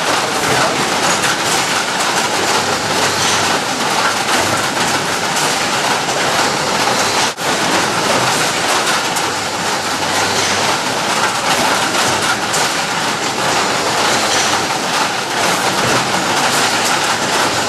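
Fruit-packing machine running: its conveyor belts run with a steady, loud clatter of fruit rolling and knocking along the lanes. The noise breaks off briefly about seven seconds in.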